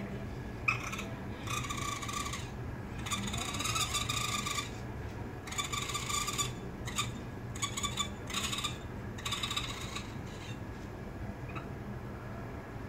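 Raccoon kits crying for their mother, who has gone out: a run of calls, each from under a second to about two seconds long, with short gaps between them.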